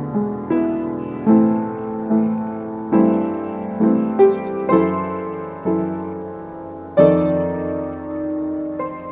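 Background music: a slow solo piano piece, single notes and chords struck about once a second, each ringing out and fading.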